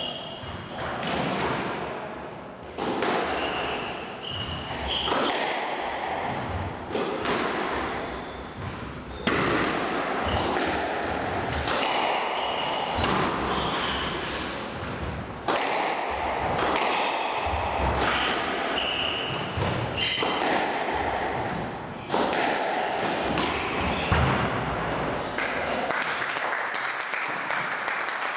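Squash rally: the ball is struck by rackets and thuds against the court walls again and again at an uneven pace, with short high squeaks of shoes on the wooden court floor in between.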